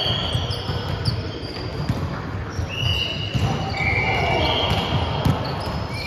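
Sneakers squeaking on a hardwood court as volleyball players shuffle and move: many short high squeaks at different pitches, over dull thuds of feet and balls echoing in a large hall.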